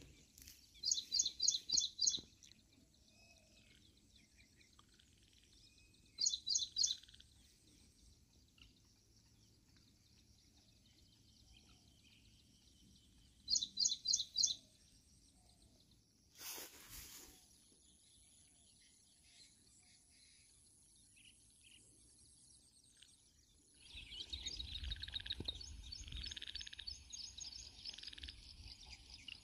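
A bird calling in quick runs of high, sharp chirps, three or five notes to a run, repeated three times with pauses between. Near the end a louder rushing noise sets in, with more chirping over it.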